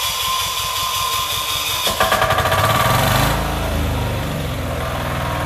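Electric starter cranking a Weima 186FBE single-cylinder diesel on a walk-behind tractor, with a fast whirring and pulsing. About two seconds in the engine catches and runs up loud, then settles into a steady idle.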